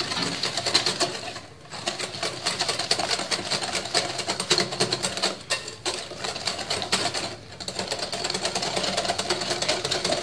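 Hand whisk beating egg and sugar in a glass bowl, clicking and scraping rapidly against the glass, with a few brief pauses in the rhythm.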